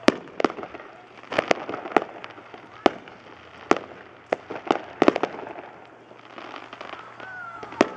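Aerial consumer fireworks bursting: a dozen or so sharp bangs at uneven intervals, coming thickest in the first five seconds and thinning out after that.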